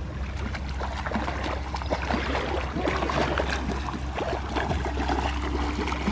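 Swimming-pool water splashing and lapping as a small child paddles and kicks through it, in many small irregular splashes.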